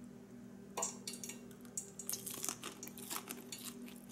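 Biting into and chewing a piece of cornmeal-breaded fried okra: an irregular run of crunchy crackles starting about a second in, over a steady low hum.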